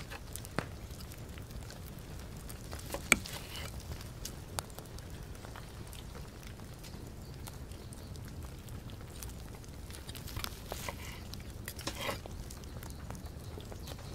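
Knife and fork slicing a seared steak on a wooden cutting board: scattered clicks and taps of the blade and tines against the board, the sharpest about three seconds in and a cluster near the end, over a steady low background rumble.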